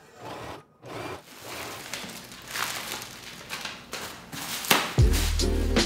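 A sewing machine runs in a few short bursts of stitching. Then comes crinkling and rustling of plastic packing and cardboard as a box is unpacked. Music begins about five seconds in.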